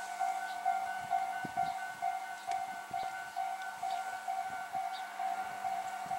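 Electronic railway level-crossing alarm ringing: a steady pulsing tone repeating about twice a second, sounding as a train approaches.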